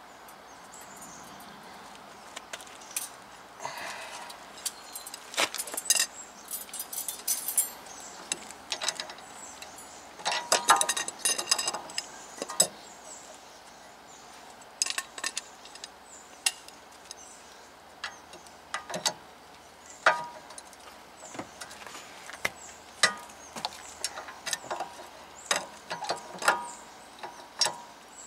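Ratchet wrench with a 17 mm socket working a bolt on a 2017 Honda Civic's rear brake assembly: scattered metallic clicks and clinks of the tools, with two runs of rapid ratchet clicking.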